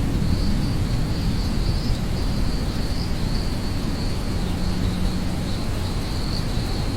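Rainstorm ambience: the low rumble of thunder dies away at the start, leaving steady rain hiss under a continuous, gently pulsing high chirring of insects.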